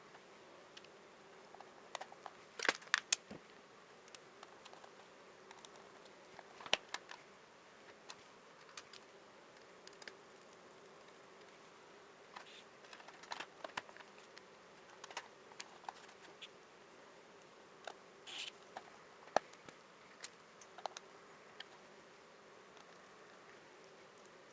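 Irregular small clicks and taps, a few louder ones in a quick cluster about three seconds in, over a faint steady hum.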